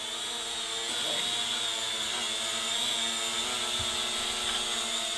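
Smoke machine running: a steady hiss with a faint hum beneath it.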